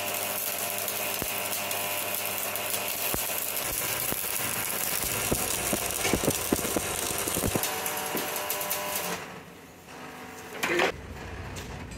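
Stick (arc) welding on steel: the electrode crackles and sizzles steadily, then the arc stops about nine seconds in. A brief loud sound follows about a second later.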